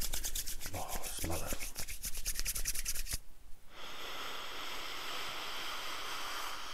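Palms rubbing together in rapid strokes to spread a few drops of beard oil, stopping about three seconds in. After a short pause comes a long, steady breath in through the nose into cupped, oiled hands, smelling the oil.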